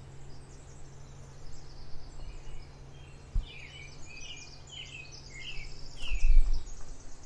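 Songbirds singing in the forest, a string of short chirping phrases through the middle with fainter high trills above. A low thump comes once, and a low rumble like wind or handling on the microphone comes near the end.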